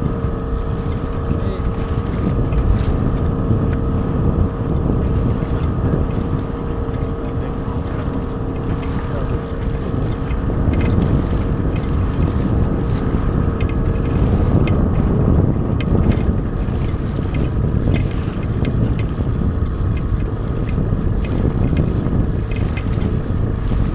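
Small outboard motor running steadily at trolling speed on an inflatable boat, with wind buffeting the microphone.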